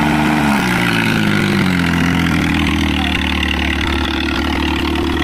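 Mahindra 265 DI tractor's three-cylinder diesel engine running while pulling a disc harrow through tilled soil. Its note drops in pitch over the first couple of seconds, then holds steady.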